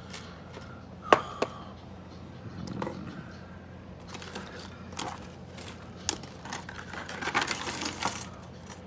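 Lock pick and tension wrench working in the keyway of a Bunkerhill disc padlock: small metallic clicks and scraping, with a sharp click about a second in and a quicker run of clicks near the end. The core is under heavy spring tension.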